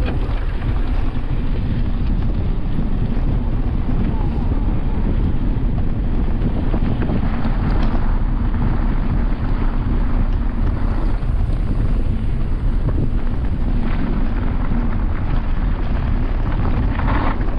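Wind rushing over an action camera's microphone as a mountain bike descends fast down a rough track, with the bike rattling and clicking over the ground.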